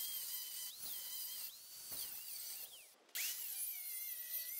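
Angle grinder with a cutoff wheel cutting through the welds of steel brackets on an old air compressor tank. Its high whine dips and recovers as the wheel bites into the metal, with a short break about three seconds in.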